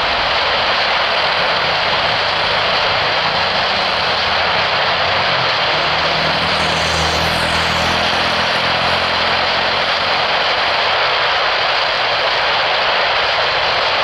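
Jet airliner engines at takeoff power: a steady, loud rush with a low hum underneath that swells about halfway through, along with a faint falling whistle.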